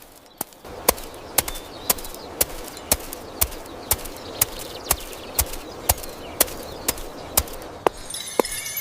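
Steady, regular steps on a hard surface, about two a second, over a low ambient hiss. Near the end there is a brief burst of high bird chirping.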